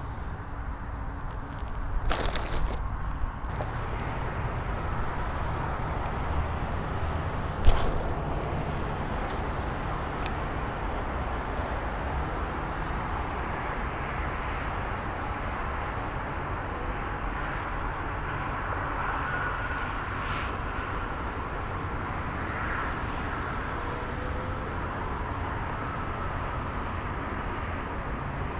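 Steady low outdoor rumble, with a brief rustle about two seconds in and one sharp crack about eight seconds in, the loudest moment.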